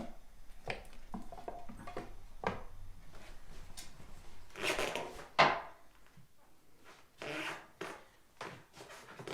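Household handling noises: scattered light knocks and rubbing of wooden things, with a louder scrape about halfway through that ends in a sharp knock.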